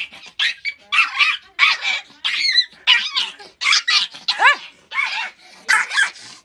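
Small puppy yapping and yelping over and over in quick high-pitched bursts, a few a second, some calls swooping up and down in pitch.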